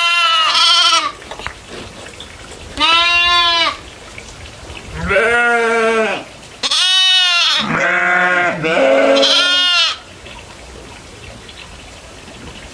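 A series of wavering bleats from goats or sheep, at least two animals, one higher-pitched and one deeper, calling in turn and overlapping in the middle; the calls stop a few seconds before the end.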